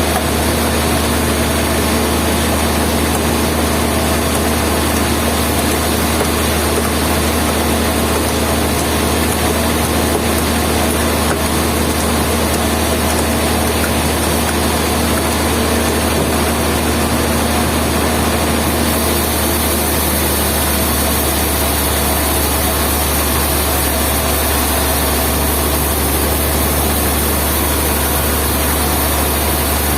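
Heavy sawmill machinery running with a loud, steady low drone; the hum shifts slightly about two-thirds of the way through.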